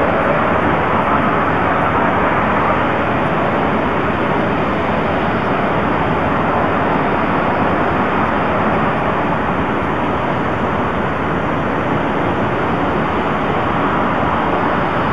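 2-8-0 steam locomotive moving slowly with a loud, steady hiss of steam, fitting steam blowing from its open cylinder cocks.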